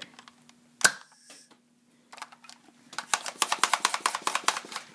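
A Buzz Bee Panther air-pressure dart blaster fires with one sharp crack about a second in, followed by a short hiss of released air. Rapid clicking runs through the last two seconds.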